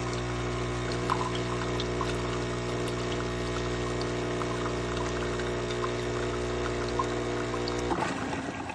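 Super-automatic espresso machine's pump humming steadily as it dispenses coffee, with a few small ticks, cutting off abruptly about eight seconds in.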